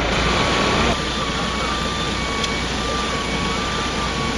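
Heavy vehicle engines idling with a steady low rumble. From about a second in, a thin, steady high tone sounds over it.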